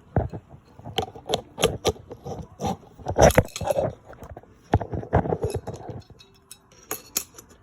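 Small metal parts and tools of a handheld camera stabilizer clinking and rattling as they are handled, a string of sharp clicks with denser rattles about three and five seconds in.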